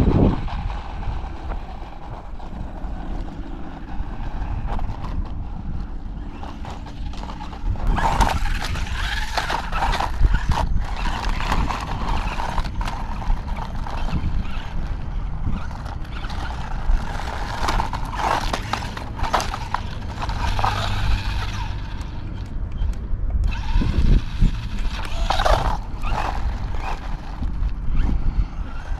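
A toy-grade JMRC Bison RC truck's electric motor whines up and down in pitch as the truck is driven over dry dirt, busier from about eight seconds in. Wind rumbles on the microphone throughout.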